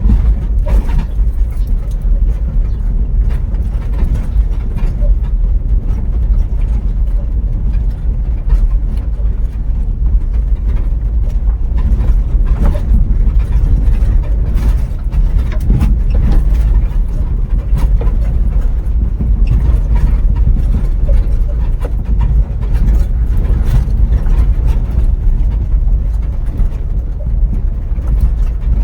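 Steady low rumble of a vehicle driving on a country road, with frequent small knocks and bumps.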